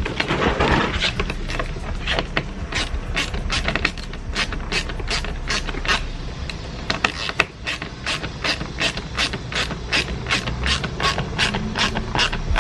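Hand ratchet clicking steadily, about three clicks a second, as it drives a fastener back in on the door.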